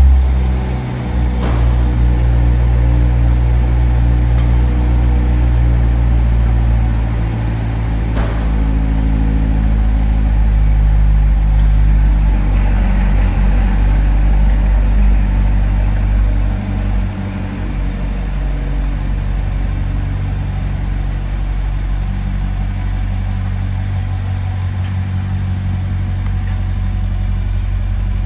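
A car engine running steadily, with a low, even note and a brief drop in level about 17 seconds in; most likely the 2018 Corvette's V8.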